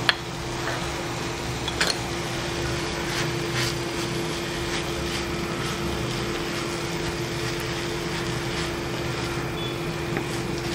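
Wooden spatula stirring and scraping sautéed drumstick leaves, onion and coconut around a metal kadai, with a sharp tap at the start and another about two seconds in. Under it runs a steady mechanical hum.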